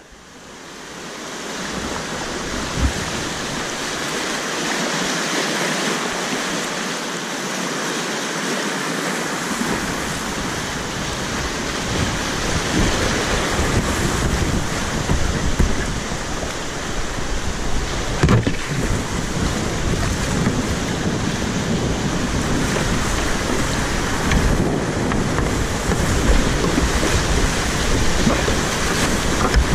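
Rushing whitewater rapids heard from a kayak on the river, a steady roar of water that fades in at the start, with paddle splashes and low rumbling on the microphone from about ten seconds in.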